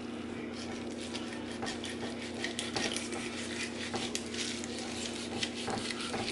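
A raw whole chicken being handled and positioned on a cutting board: scattered small clicks and soft knocks, over a steady low hum.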